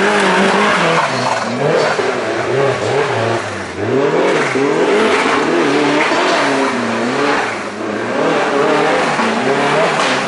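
Off-road competition car's engine revving up and down repeatedly, its pitch rising and falling every second or so without letting up.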